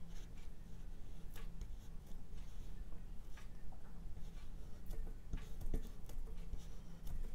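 Flat paintbrush laying oil paint onto a textured canvas panel: a series of short, scratchy dabs and strokes at irregular intervals, over a low steady hum.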